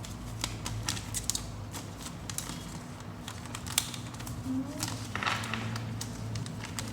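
Scattered light clicks and taps of boxes and packaging being handled, over a steady low hum.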